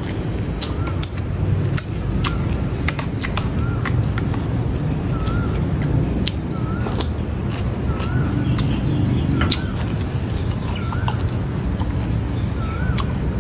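Close-up mouth sounds of chewing a mouthful of food, many small wet clicks and smacks. Behind them a bird repeats a short wavering chirp about once a second, over a steady low rumble.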